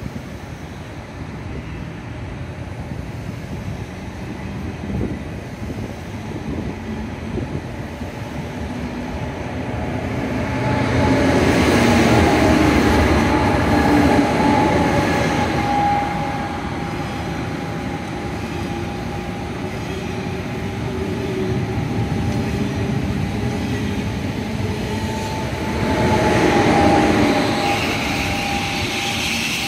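SRT high-speed train, a long set of two coupled trains, pulling away and gathering speed: a continuous rumble of wheels on rail with a steady whine. It swells loud about eleven seconds in and again near the end as the train runs past.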